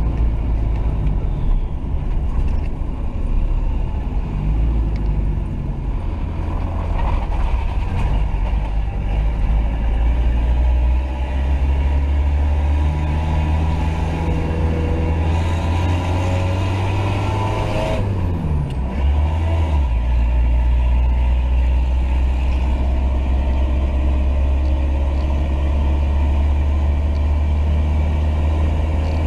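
Toyota 3B 3.4-litre four-cylinder turbo diesel running under load, heard from inside the cab. The engine note falls about eighteen seconds in and then settles steady again.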